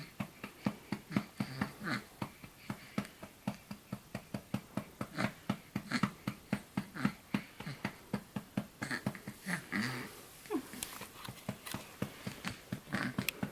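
A hand patting a back to bring up a burp, in an even rhythm of about three to four pats a second. There is a brief small whine about ten and a half seconds in.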